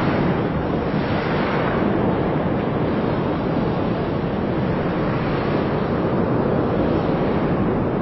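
Cumbre Vieja volcano's lava fountain erupting: a loud, steady rushing rumble with no separate blasts.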